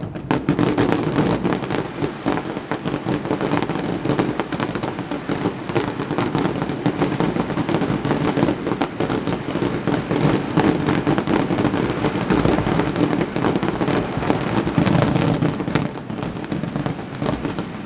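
Dense barrage of aerial fireworks shells bursting, a continuous run of booms and crackling with hardly a gap. It starts suddenly and eases off near the end.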